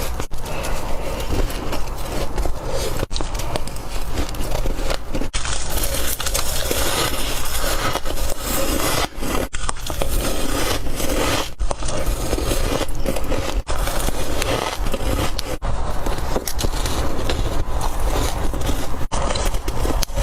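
Close-up crunching of soft, cotton-like white ice being bitten and chewed, spliced together as a string of bites with a brief break every two to four seconds.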